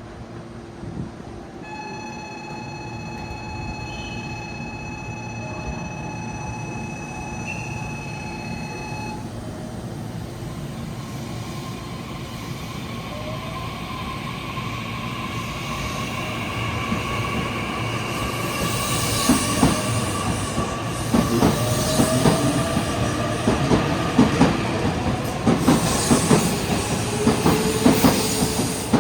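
A Meitetsu 9500/9100 series electric train pulling out of the station. A steady pitched tone sounds from about two seconds in to about nine seconds in. Then the traction motors' whine rises slowly in pitch as the train gathers speed, and the wheels start clicking over the rail joints and grow louder as the cars pass.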